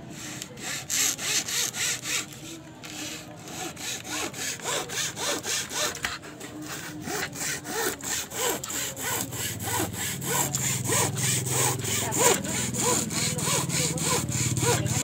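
Hacksaw cutting through a thin wooden board in quick, even back-and-forth strokes, about four a second.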